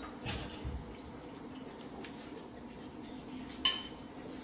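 Two light clinks of a kitchen utensil against a dish, one just after the start and one near the end, each with a short metallic ring, over a faint steady hum.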